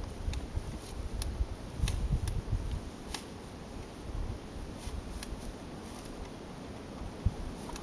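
Horses tugging hay through a small-mesh hay net and chewing it: scattered crisp crunching clicks at irregular intervals, over a low rumble.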